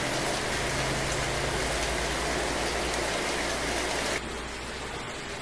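Steady rain falling outside, an even hiss; about four seconds in it suddenly turns duller and slightly quieter.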